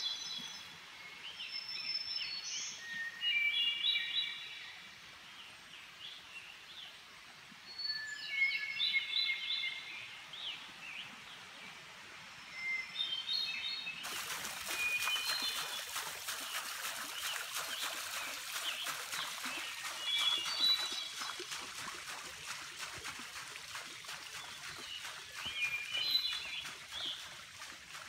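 Songbirds singing short whistled phrases every few seconds, over a steady outdoor background hiss that grows louder about halfway through.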